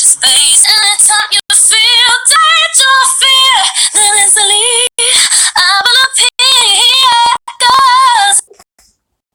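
A woman's voice singing with vibrato, held notes and quick runs. It stops suddenly about eight and a half seconds in.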